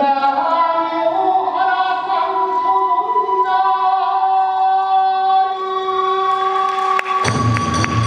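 Kagura chant sung in long, held notes. Near the end the accompaniment comes in with a drum and cymbals striking a quick, steady beat.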